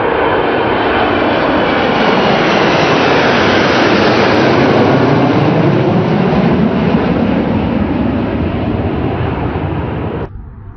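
Formation of Panavia Tornado jets flying past, their RB199 turbofans making a loud, continuous jet roar with a slowly sweeping, phasing quality as they pass. It cuts off abruptly near the end.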